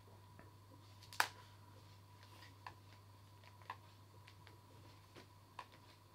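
Quiet room tone with a steady low hum and a faint thin high tone. A few small sharp clicks are scattered through it, the loudest about a second in.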